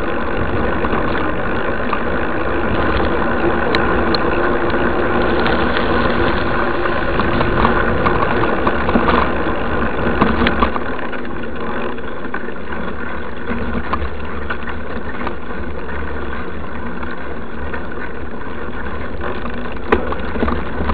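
Steady rumble and rattle of a bike-mounted camera riding over a dirt road, with a constant hum beneath. It is busier in the first half, with a few sharp knocks about ten seconds in and one near the end.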